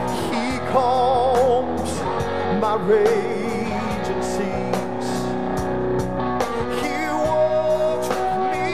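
Live gospel band playing: electric guitar, bass, keyboard and drums under a singer holding long notes with vibrato.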